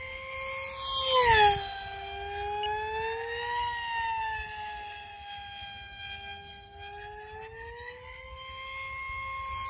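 Multiplex FunJet Ultra 2's electric motor and propeller whining in flight, the pitch rising and falling with throttle and distance. About a second in it passes close and loud, the pitch dropping sharply as it goes by.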